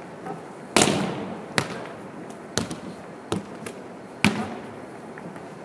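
A volleyball being struck and bouncing on a hardwood gym floor: sharp smacks that echo through the gym, the loudest about a second in, then several more at irregular spacing.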